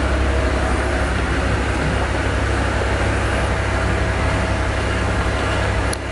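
Steady low rumble with an even hiss over it, continuous machine-like background noise, and a light click near the end.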